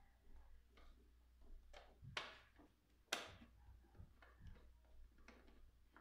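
Faint clicks and taps of a screwdriver working inside the plastic motor base of a Cuisinart DCG-20N as its screws are undone, with two sharper knocks about two and three seconds in.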